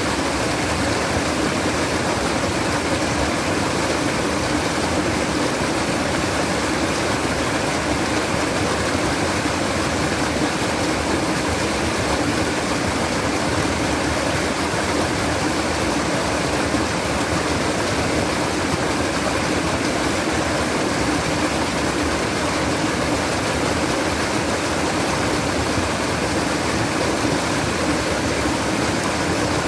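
Flowing water babbling steadily, an even sound that does not change.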